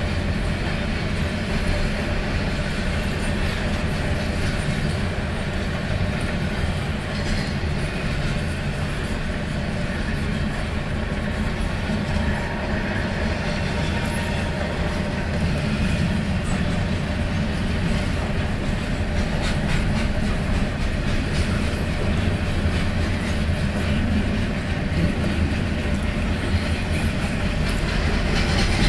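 Pan Am Railways freight train 22K rolling by: a steady low rumble with wheels clacking over the rail joints, growing louder near the end.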